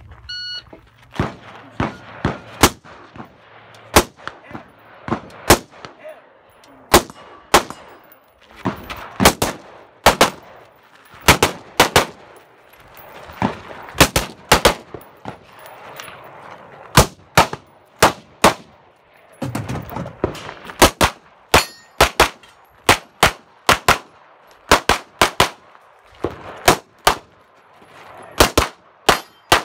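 Rapid gunfire from a competition shooter, an AR-style rifle and then a semi-automatic pistol, the shots often coming in quick pairs and short strings. A metallic ring of struck steel targets sounds among the shots.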